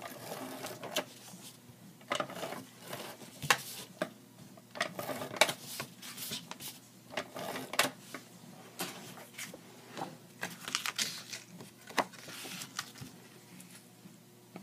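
Paper rustling and tape handling as a cardstock panel is taped down onto a handmade card, with irregular sharp clicks and taps from the hands and paper on the table.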